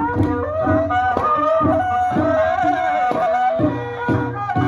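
Traditional Khmer ceremonial music: a wavering, sustained melody line over a steady hand-drum beat.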